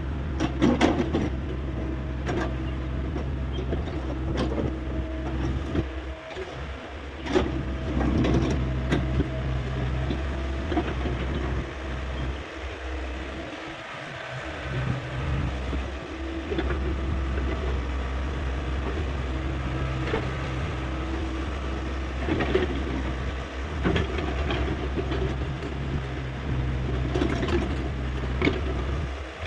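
Hyundai 85A excavator's diesel engine running steadily, with scattered knocks and clunks from the machine at work.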